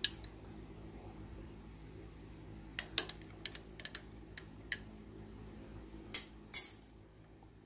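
Metal teaspoon clinking against the inside of a ceramic mug while stirring tea: one clink at the start, a scattered run of about eight clinks a few seconds in, and two louder ones near the end.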